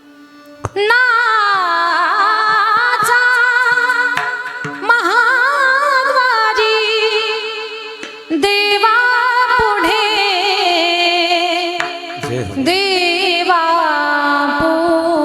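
A woman singing a Marathi devotional song in long, ornamented held phrases with a wavering vibrato, over a steady drone note.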